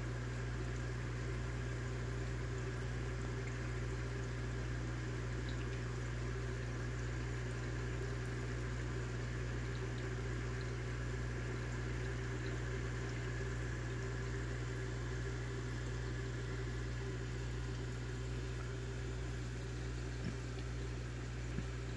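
Aquarium pump running steadily: a low hum with bubbling water over it. Two faint taps near the end.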